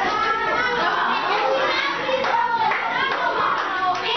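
A classroom of schoolchildren clapping and shouting over one another, many voices at once in a lively din.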